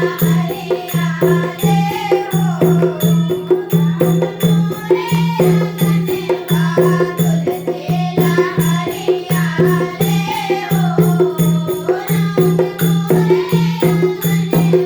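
Hindu devotional bhajan music: a gliding melody over a low note pulsing to the beat, with steady rhythmic percussion.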